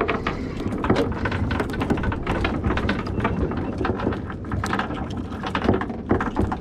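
Spinning fishing reel and tackle being handled: many rapid clicks and rattles over a steady low rumble.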